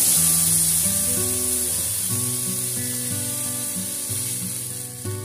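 Water poured into a hot steel kadai of fried okra and potatoes, hissing and sizzling loudly as it hits the oil, the hiss slowly dying down as the pan fills.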